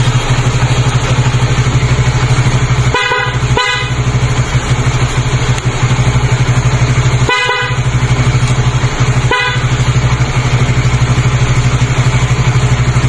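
Motorcycle engine idling steadily while an aftermarket loud horn, wired through its own switch, gives four short beeps: two in quick succession about three seconds in, one a little longer midway, and one more soon after.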